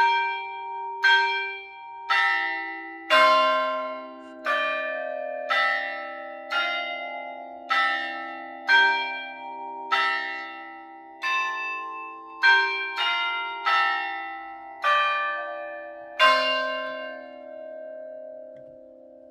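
Church tower bells playing a hymn tune, one bell struck at a time at about one note a second, each note ringing on under the next. The last note near the end is left to ring out and fade.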